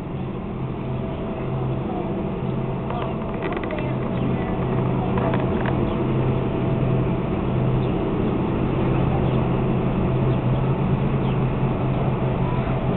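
Cruise ship's steady low machinery hum under a rushing noise, growing slightly louder over the first few seconds, heard while the ship is under way.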